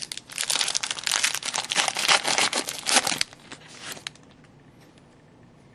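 Foil wrapper of a hockey card pack being torn open and crinkled: a dense crackling for about three seconds, a few lighter rustles, then quiet handling.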